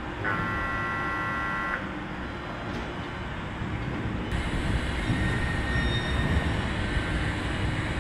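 A short signal tone, a steady chord of high notes lasting about a second and a half. About four seconds in, a steady, louder mechanical hum with a faint high whine takes over as the Ge 6/6 II electric locomotive turns on the depot turntable.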